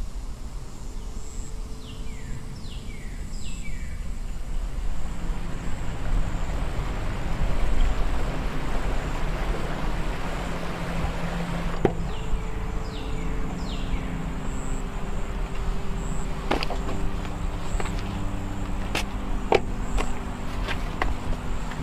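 Rushing creek water over rocks swells up in the first few seconds and runs on steadily, with two short runs of falling bird chirps. Near the end, footsteps crunch on gravel, and a low steady drone runs underneath.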